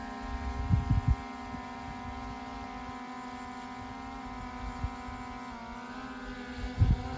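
DJI quadcopter drone's propellers humming steadily while it hovers and comes down to land, the pitch shifting slightly partway through. A few low thumps about a second in and again near the end.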